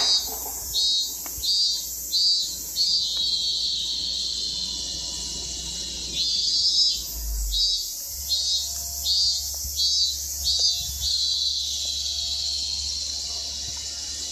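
Robust cicadas (minmin-zemi, Hyalessa maculaticollis) singing: a high call pulsing about twice a second, which twice runs into a long, steady drawn-out buzz, over a constant high hiss of more cicadas.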